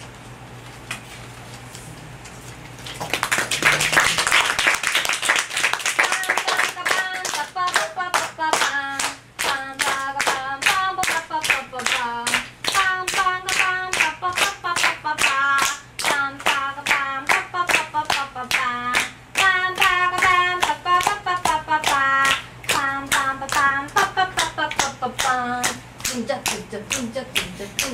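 Audience applause breaks out about three seconds in, then settles into steady rhythmic clapping along with voices singing a tune.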